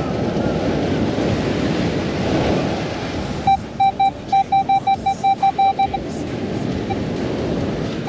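Surf and wind on the microphone, then, from about three and a half seconds in, a metal detector beeping over a buried target: about a dozen short beeps of one steady pitch in quick succession over some two and a half seconds, which then stop.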